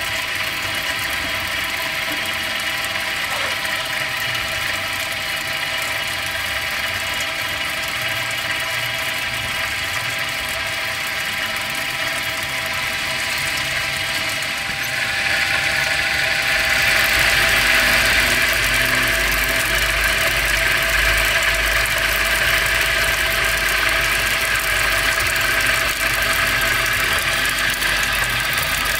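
Homemade disc-type brushless motor on an ESC, running steadily and driving a small water pump through a toothed timing belt. A steady whine of several tones sits over the hiss and splash of the pumped water jet. The water noise grows louder about halfway through.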